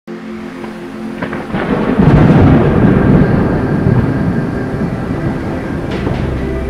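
A long roll of thunder that swells about two seconds in and slowly dies away, over a steady hiss of rain.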